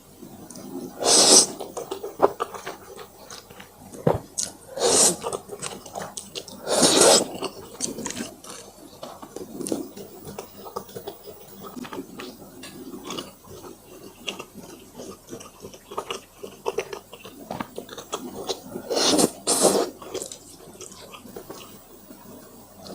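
Close-up eating of spicy instant noodles: several loud slurps of noodles, two of them close together near the end, with wet chewing and small mouth clicks in between.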